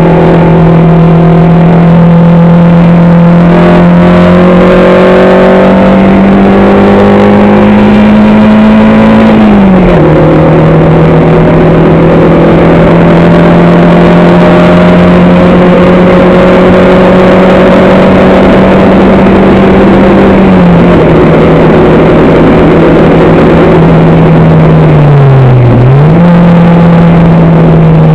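Racing car engine heard on board at speed, held at high revs and slowly climbing. The revs drop sharply about ten seconds in and again about twenty-one seconds in, with a brief dip and recovery near twenty-six seconds and a fall at the end, as the driver shifts or lifts. Steady wind and road noise runs underneath.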